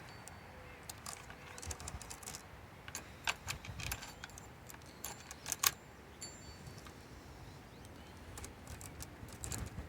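Loose saw chain clinking and rattling as it is handled and fitted onto a chainsaw's bar: scattered sharp metallic clicks, the loudest a little past halfway.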